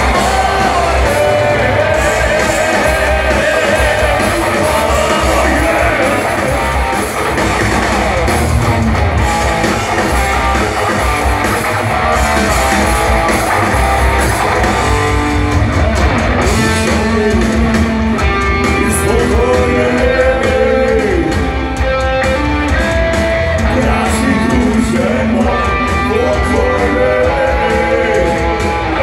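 Loud live rock band playing: electric guitars and drums with singing, heard from within the crowd.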